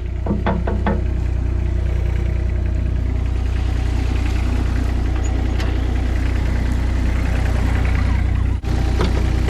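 Mini skid-steer loader's engine idling steadily, with a brief dropout near the end.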